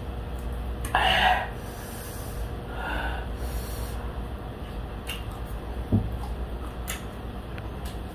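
A woman's loud, sharp snorting breath about a second in, then a softer breath near three seconds, while she eats. A short knock comes near six seconds, with a few faint clicks.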